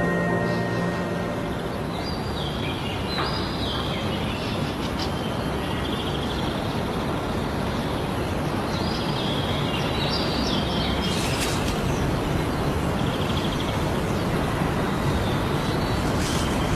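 Woodland ambience: a steady rushing hiss with high, short bird chirps a few times. A tail of music fades out in the first second.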